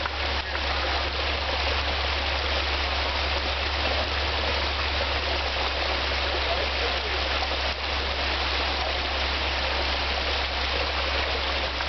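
Steady rush of running creek water over rocks, with a low steady hum underneath.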